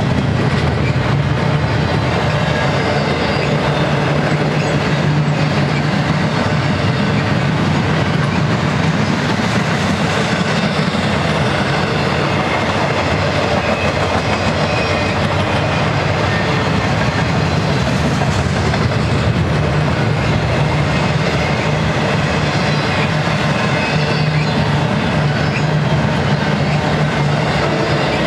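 Double-stack intermodal well cars of a BNSF freight train rolling past, with the steady, loud noise of steel wheels on rail and no let-up.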